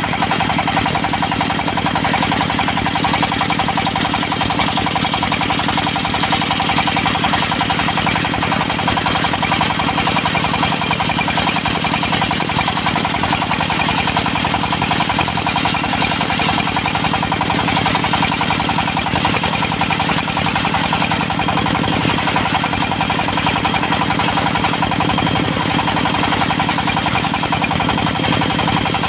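Portable circular sawmill running steadily at an even pitch, its engine and spinning saw blade holding one constant sound.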